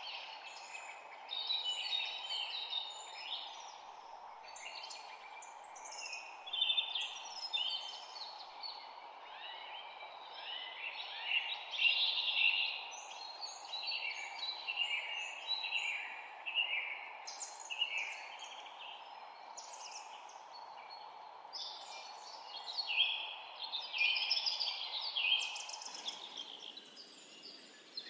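Many birds chirping and trilling at once in a dense, overlapping chorus, over a steady background hiss. The hiss drops away about two seconds before the end while the bird calls carry on.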